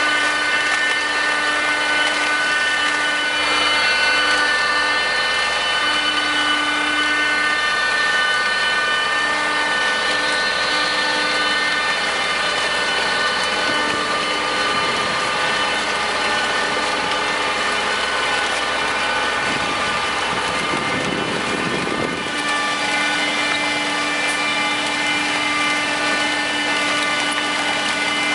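Tractor-drawn cabbage harvester running in the field: a steady machinery drone with several steady whining tones over it, and a brief rougher rush of noise about three-quarters of the way through.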